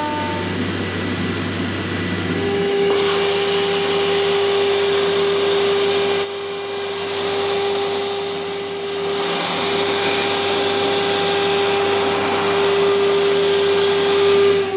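CNC router spindle machining 15 mm thick aluminium plate: a dense, steady cutting hiss, with a steady high whine that sets in about two seconds in.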